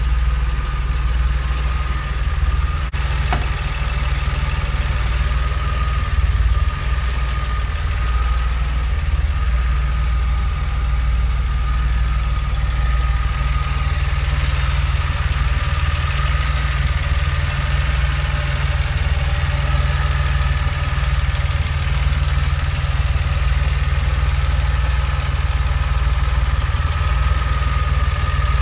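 1981 DeLorean DMC-12's 2.85-litre PRV V6 idling steadily, with a thin steady whine above the low engine note.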